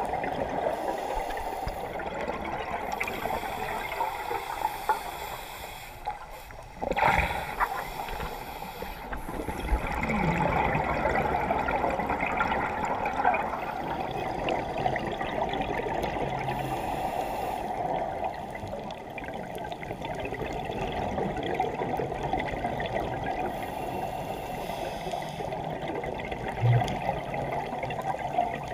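Muffled underwater bubbling and gurgling from scuba divers' exhaled bubbles and regulator breathing, picked up through an underwater camera housing, with a louder burst about seven seconds in.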